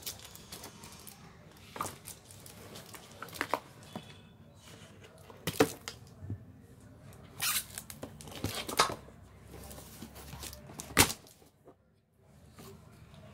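Cardboard packaging being handled, folded and pulled open: rustling and tearing with several sharp cracks and snaps, the loudest near the end.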